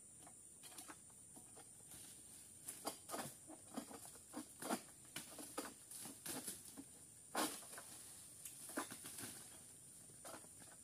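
Long-pole harvesting sickle (egrek) hacking and tearing at an oil palm's frond bases high in the crown: an irregular string of cracks and rustles, the sharpest about seven and a half seconds in. A steady high-pitched hum runs underneath.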